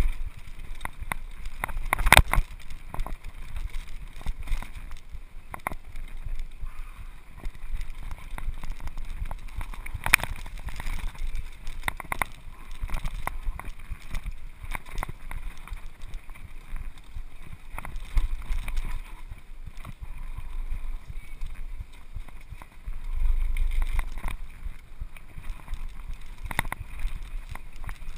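Mountain bike clattering over a rough dirt downhill trail: a steady rattle of the bike with sharp knocks from bumps, the loudest about two seconds and ten seconds in, and wind buffeting the microphone at times.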